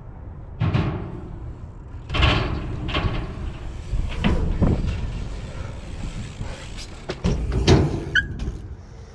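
Strong wind buffeting the microphone: a steady low rumble that swells in gusts, with several sudden loud blasts. There is a short high squeak about eight seconds in.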